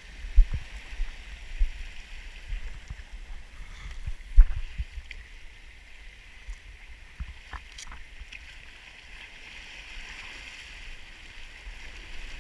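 Sea surge washing and foaming over rocks, a steady hiss of water, with a few dull low thumps in the first half, the loudest about four seconds in.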